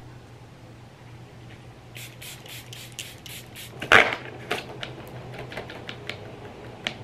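Quick hissing spritzes of setting spray misted at the face, then a louder rustle about four seconds in as a folding hand fan is opened, followed by soft whooshes of the fan being waved.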